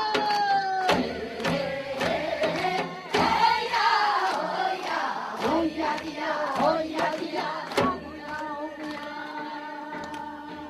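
Korean Gyeonggi folk song sung by a chorus of women and children, with a few sharp drum strokes. About eight seconds in, the voices settle into a long held note.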